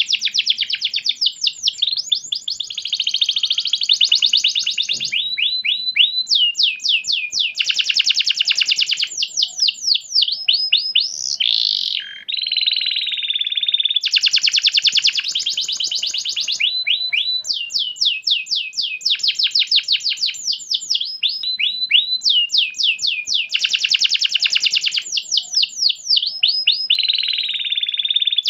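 Domestic canary singing continuously at full pace. Long, fast rolling trills of rapid repeated notes alternate with runs of quick rising-and-falling sweeping notes, with no real pauses.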